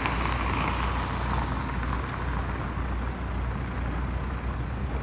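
Steady low rumble and hiss of motor traffic, with no sudden events.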